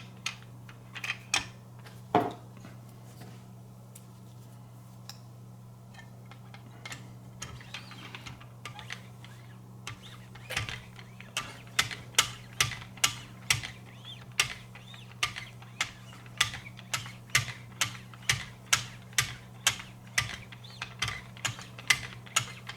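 Sharpening strokes of a guided-rod knife sharpener, its fine abrasives worked along a clamped blade to polish a mirror edge: a few scattered clicks at first, then from about halfway a steady run of sharp clicks about two a second, over a constant low hum.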